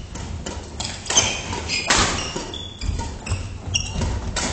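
Badminton rally: sharp racket hits on the shuttlecock, the loudest about one and two seconds in, among players' footsteps and brief shoe squeaks on the wooden gym floor.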